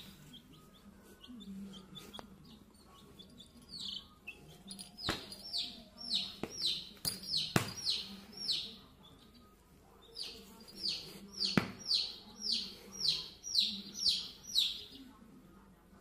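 A baby chick peeping over and over: short falling chirps, about two a second, in long runs. A few sharp knocks are heard among them.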